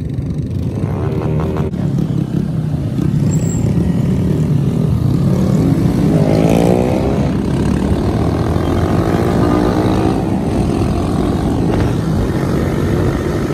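Mini bike engines running under throttle, with one revving up about six seconds in.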